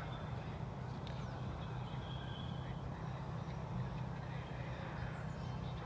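Steady outdoor background noise with a low rumble, and a faint, thin, high call a couple of seconds in.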